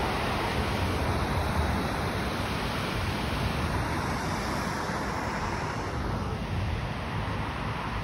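Wind buffeting a phone's microphone outdoors: a steady, gusting rush of noise, heaviest in the low end.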